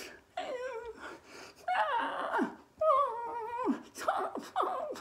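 A man's wordless voice: a string of drawn-out, wavering cries that slide up and down in pitch, several ending in a falling glide, with short breaks between them.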